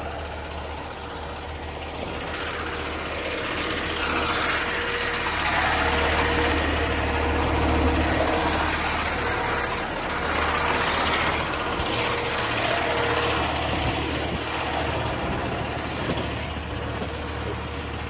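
A vehicle engine idling steadily, with a noisy layer over it that grows louder through the middle.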